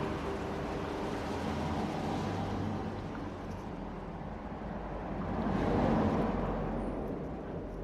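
Hot air rework station blowing a steady rush of air while old solder is heated off a phone's circuit board, growing louder for a moment about six seconds in.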